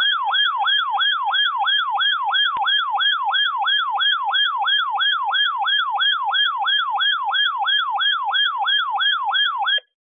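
Handheld weather radio's alert siren going off for a coastal flood warning: a loud electronic tone that sweeps downward over and over, about three times a second, and cuts off just before the end.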